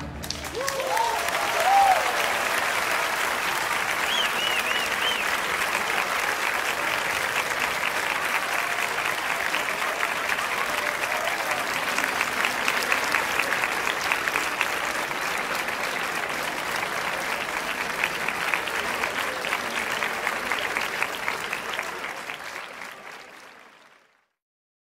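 Large crowd applauding steadily with a few cheering shouts in the first seconds, the clapping fading out near the end.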